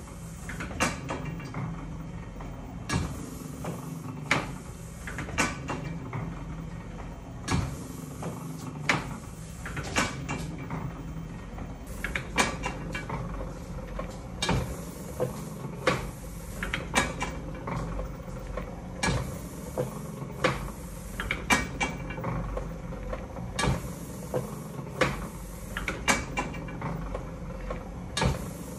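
Motor-driven platen letterpress running through its print cycle: a steady low motor hum with a sharp mechanical clack about every second and a half as the platen closes and the rollers cycle.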